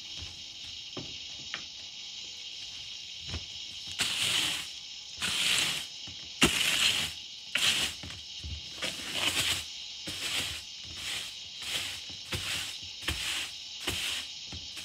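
Straw broom sweeping a wooden plank floor: a few light footstep knocks, then from about four seconds in, repeated swishing strokes of the bristles across the boards, the first few loudest, then quicker and lighter.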